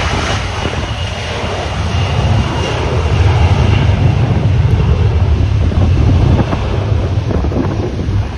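Jet airliner's engines running, a steady low rumble under a hiss, with a faint high whine in the first few seconds, growing louder for a few seconds in the middle.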